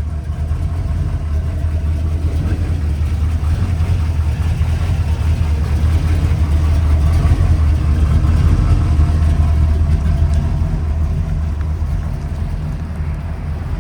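The 1979 Chevrolet C10's GM ZZ383 crate V8 idling steadily with a deep, even rumble, growing a little louder midway before easing off.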